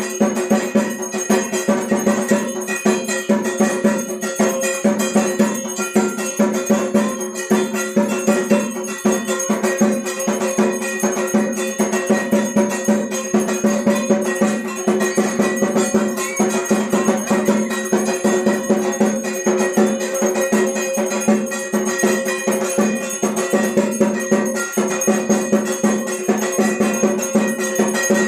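Temple bells and percussion clanging rapidly and without a break, with a sustained ringing underneath, as at a Hindu temple's aarti.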